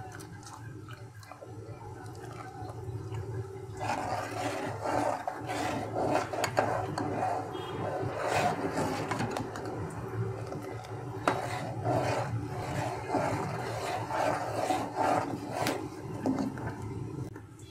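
A steel ladle stirring and scraping against the bottom and sides of an aluminium pot of hot milk as it curdles after acid is added, with a steady low hum underneath. The scraping and clinking grow louder and busier about four seconds in.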